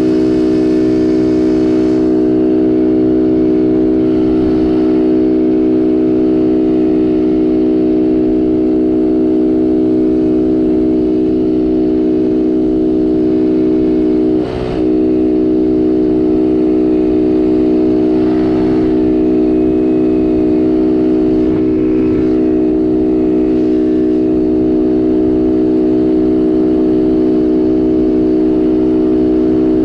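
Racing quad's engine heard from on board, running hard at a nearly constant pitch, with a brief dip in level about halfway through.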